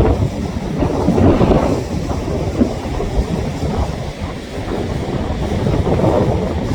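Sea waves breaking and washing on the shore: a loud, rushing rumble that swells and eases.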